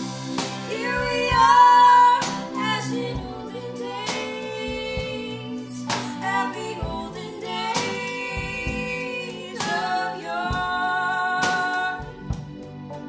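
Two women singing a Christmas medley in harmony, with electric keyboards, a strummed acoustic guitar and drum hits keeping the beat.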